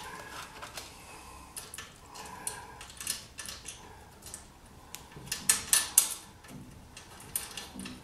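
Small metal parts clinking and tapping as a homemade bellcrank of bent metal, bolts and a cut aluminium arm is handled and held against a car's door frame. Scattered light clicks, with a quick run of louder ones about five to six seconds in.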